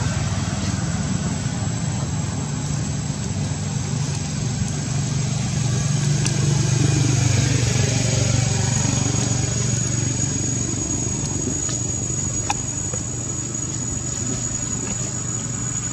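An engine running steadily: a low hum with a thin, steady high whine above it and a few faint clicks.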